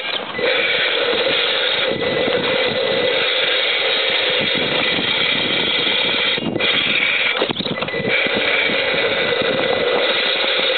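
Electric motor and geared drivetrain of an RC rock crawler whining steadily as it drives, cutting out briefly twice a little past halfway.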